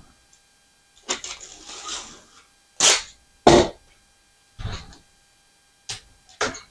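Clear packing tape pulled off its roll in several short strips, each a brief noisy rasp, along with the tape being torn.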